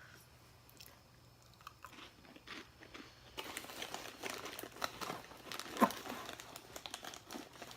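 A person biting into and chewing small crunchy mini pizza crackers. A few faint clicks come first, and dense crunching starts about three and a half seconds in.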